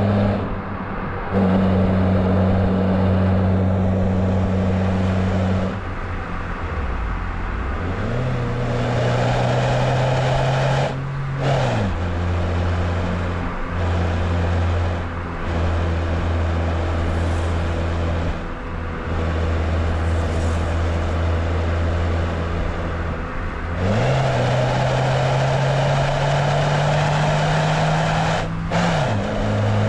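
Chevrolet Beat's engine breathing through a K&N air filter, pulling under load. Its note climbs slowly twice, and each climb ends in a sharp drop as the gear is shifted up.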